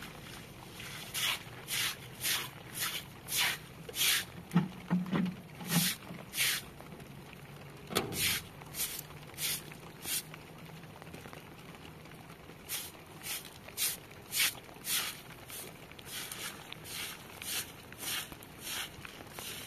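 Short straw broom sweeping wet, muddy ground in quick scratchy strokes, about two a second, with two brief pauses.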